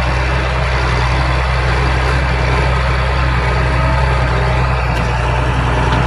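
Case IH Puma 140 tractor's six-cylinder diesel engine running steadily under load while pulling a disc harrow, a constant low drone.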